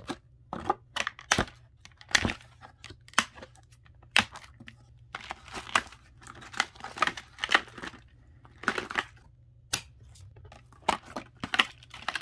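Clear plastic packaging insert and cardboard box backing crinkling and rustling in irregular crackles as the doll and its insert are handled and pulled from the box.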